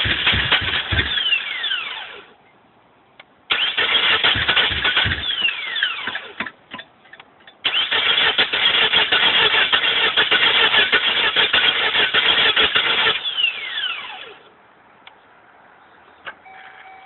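Starter motor cranking the 2.4-litre four-cylinder engine of a Chevrolet Cavalier in three attempts, the last and longest about five seconds, each ending with a falling whine as the starter spins down; the engine never fires. A no-start, which the owners think has probably flooded the new spark plugs.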